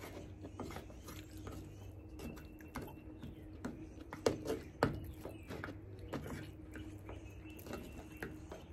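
Metal spoon scraping and clicking against the inside of a Dungeness crab's top shell, scooping out the crab fat and meat, with two sharper clicks a little past halfway.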